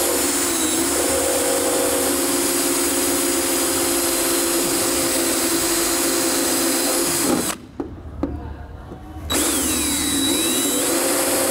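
Power drill spinning a large twist bit against the steel door of a soda vending machine, running steadily, stopping for about two seconds roughly two-thirds through, then starting again. The bit isn't sharp enough to bite into the metal, so it grinds without cutting through.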